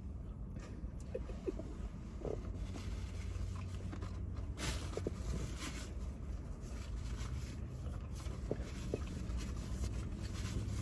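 Eating sounds: faint chewing, with a burger and its wrapper being handled in short rustles and small clicks, over a low steady rumble.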